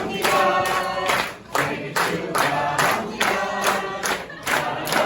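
Many voices singing together in a steady rhythm.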